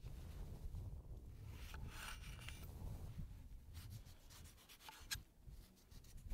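Kitchen knife slicing the peel and pith off an orange on a wooden cutting board: soft scraping cuts, with a sharp click about five seconds in.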